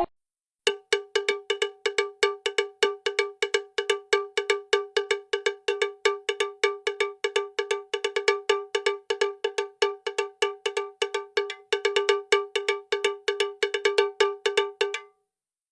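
A short, bell-like metallic tone of one pitch struck over and over in a rapid, even rhythm, about five or six strikes a second, stopping about a second before the end.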